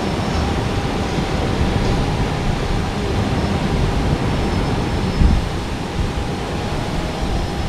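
Ocean surf and wind on the microphone: a steady rushing noise over a low, uneven rumble.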